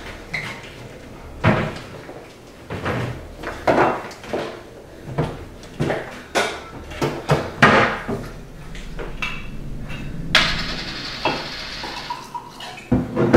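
Kitchen cupboard doors and a drawer opening and closing, with repeated knocks and clatters of dishes and utensils. Near the end, a couple of seconds of steady rushing as water runs into a glass, then one last knock.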